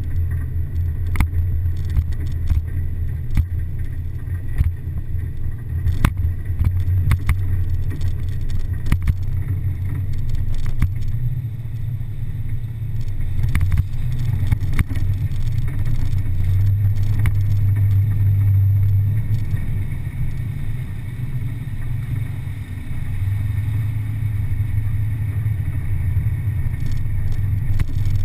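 Off-road vehicle's engine running with a low steady drone while driving a rough dirt trail, swelling a little at times, with frequent sharp knocks and rattles from bumps.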